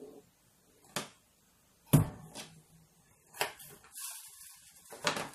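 Kitchen knife chopping an onion on a plastic cutting board: a handful of separate knocks of the blade on the board, the loudest about two seconds in.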